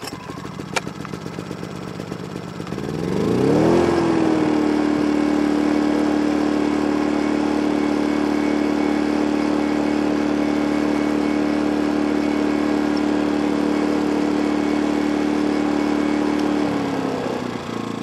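Small Energizer portable inverter generator engine running. About three seconds in it revs up to a higher steady speed and holds there, then settles slightly lower near the end.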